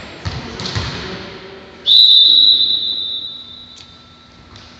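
A volleyball is bounced twice on the gym floor, then a referee's whistle gives one long, steady, high blast about two seconds in, the signal for the server to serve. The whistle fades away in the hall's echo.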